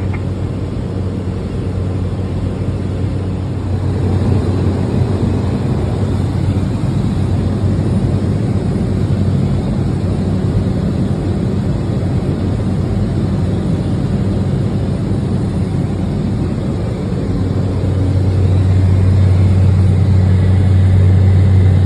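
Steady cabin drone of a Cessna 208 Caravan in flight: its PT6A turboprop engine and propeller make a continuous low hum over broad engine and air noise. The drone grows louder about three-quarters of the way through.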